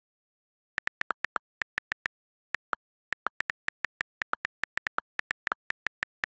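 iPad on-screen keyboard key clicks: a quick, uneven run of short, sharp ticks as text is typed, starting about a second in. A few of the clicks are lower in pitch than the rest.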